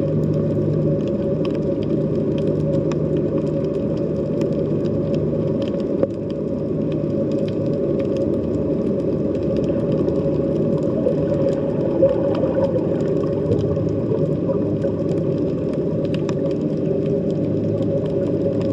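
Underwater sea ambience heard from below the surface: a steady low drone with a constant hum, and faint scattered clicks throughout. A sharper click comes about six seconds in and another about twelve seconds in.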